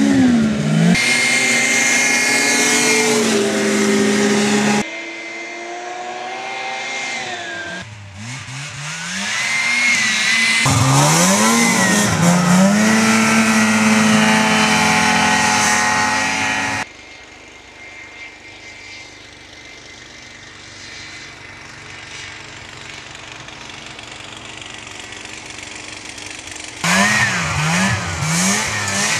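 Ski-Doo 500cc two-stroke snowmobile engine running hard: a high, steady howl that climbs, holds and falls back. Its loudness drops and jumps suddenly several times, with a quieter, fainter stretch past the middle and a few quick revs near the end.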